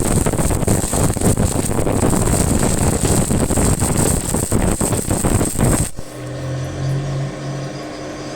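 Stick-welding arc crackling and sizzling steadily on concrete reinforcing steel, cut off abruptly about six seconds in as the arc is broken, leaving a steady low hum.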